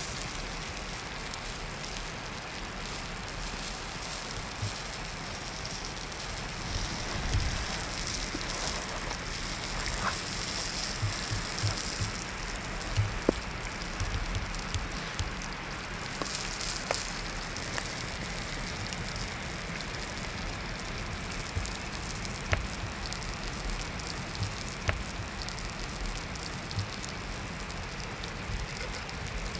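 Steady sizzling hiss of pineapple slices and cured meat frying in a pan over a campfire, with scattered fire crackles and a few light knocks of a knife and bread on a wooden board.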